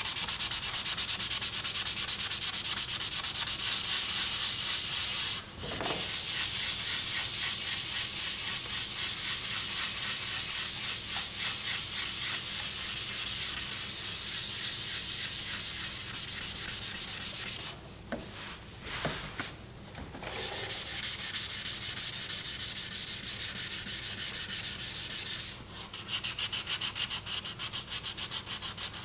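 Hand sanding of a car body panel with P320 sandpaper on a sanding pad: rapid, scratchy back-and-forth strokes. It breaks off briefly about six seconds in and for a couple of seconds past the middle. This freshens the 320-grit scratch on the repair before priming.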